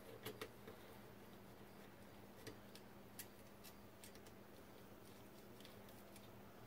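Faint, irregular small clicks and ticks of a hand screwdriver turning out steel scope-ring cap screws, over a low steady hum.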